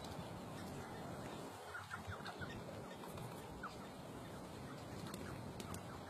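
Sandgrouse calling with short, faint rising notes, a quick cluster about two seconds in and single notes later, over a steady background hiss.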